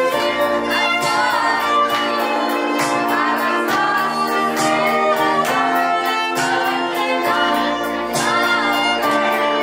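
A slow romantic song playing: a singer over bowed strings, with a steady light beat.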